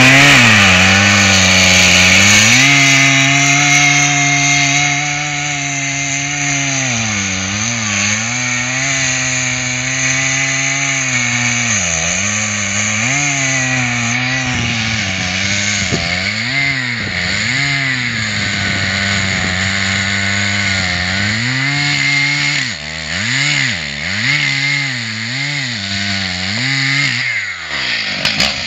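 Stihl MS880 two-stroke chainsaw cutting into a large tree trunk at full throttle. Its engine pitch sags under load in the cut and picks up again, over and over, the dips coming more often in the last several seconds before the pitch falls away near the end.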